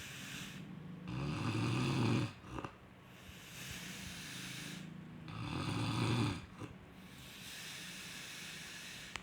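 Slow, regular snoring: two loud, low rasping snores about four seconds apart, with a quieter hissing breath between them.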